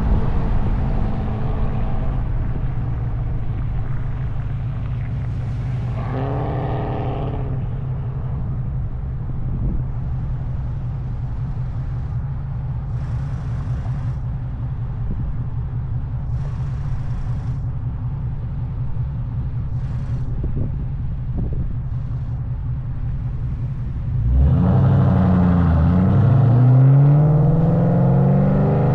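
2003 Mustang SVT Cobra's supercharged V8 through an SLP Loudmouth exhaust, a steady low rumble while cruising. About 24 seconds in it gets louder and climbs in pitch as the car accelerates.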